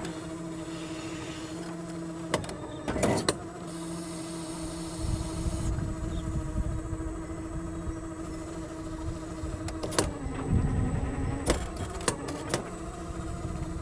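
Electric hydraulic drive of a NESHER L1400 electric compact loader humming steadily as its excavator attachment digs, the hum dipping in pitch briefly about ten seconds in. A low rumble of the bucket working through sandy soil joins about five seconds in, with a couple of sharp knocks two to three seconds in and several more near the end.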